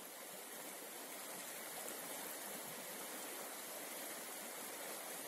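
Shallow river rushing over a stony bed in small rapids: a steady rush of running water.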